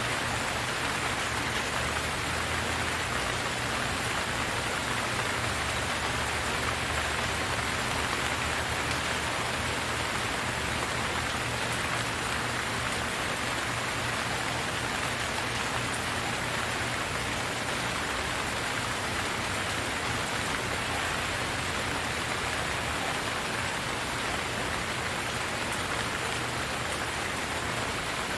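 Steady rain falling on hard surfaces, an even hiss of many drops with no change in intensity.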